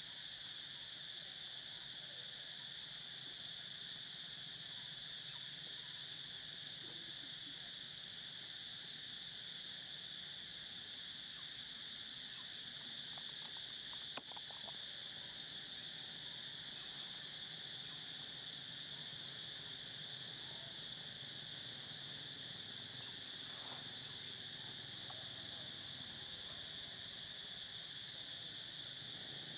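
Steady, high-pitched drone of insects, unchanging throughout, with one short click about halfway through.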